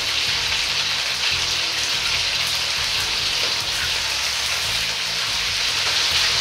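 Chicken pieces deep-frying in oil at about 170 °C in a wok, a steady sizzle as they cook through.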